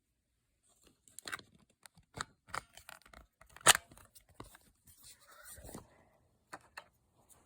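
Rubbery slime being squeezed and stretched by hand, giving off irregular small pops and crackles; one louder pop comes about three and a half seconds in.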